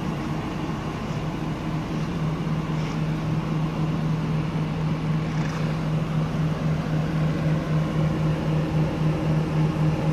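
1991 Acura NSX's 3.0-litre V6 idling: a steady drone with a slight pulsing.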